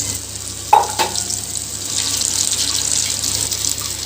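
Urad dal vada batter frying in hot oil: a steady crackling sizzle, with one brief clink just under a second in.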